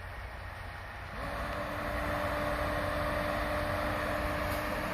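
A motor starts about a second in and runs with a steady hum at an even pitch, over a low wind rumble on the microphone.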